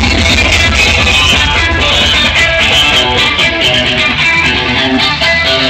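Loud music with guitar playing.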